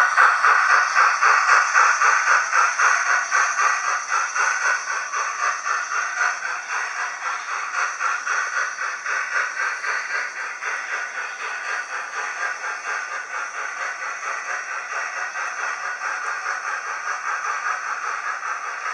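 OO-gauge model train wheels running on the rails: a steady metallic rattle and hiss with a fast, even clicking of several beats a second. Louder at first, easing off after a few seconds.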